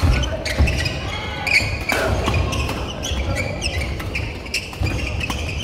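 Badminton doubles rally: sharp racket strikes on the shuttlecock a second or more apart, court shoes squeaking and feet thudding on the wooden gym floor, echoing in a large hall.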